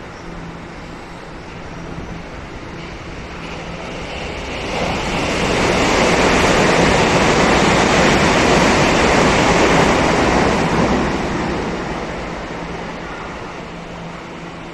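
A train passing at speed: a rushing noise that swells about five seconds in, holds for about five seconds, then fades away.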